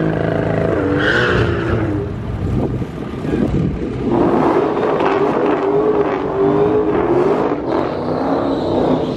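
A high-powered drag car's engine revs and wavers at the start line, then holds a high, steady note through a burnout with the rear tyres spinning.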